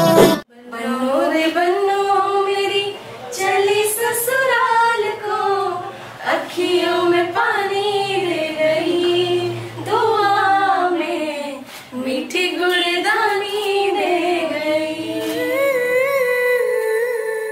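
A woman singing a slow melody with little accompaniment, in phrases of a few seconds, ending on a long held note with vibrato.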